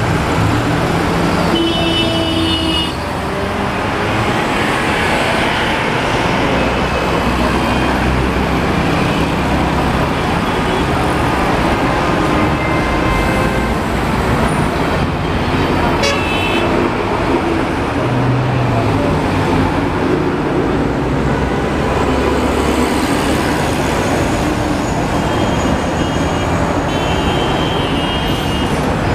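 Busy road traffic passing close by: cars, minibuses and trucks running past in a steady stream, with short horn toots about two seconds in, once around the middle and several times near the end.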